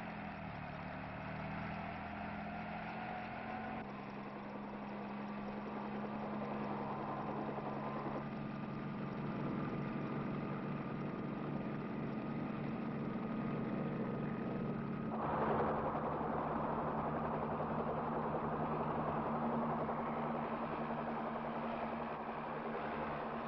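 A steady engine drone running evenly. About two-thirds of the way in, a louder rushing noise suddenly joins it and carries on.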